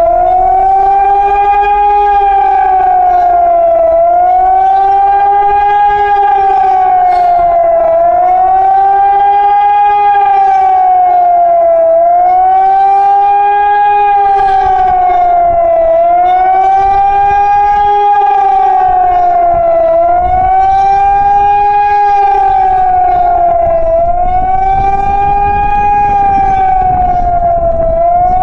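Hörmann ECN motor siren sounding a loud, wavering warning wail that swells and dips in pitch about every four seconds: the emergency alert signal.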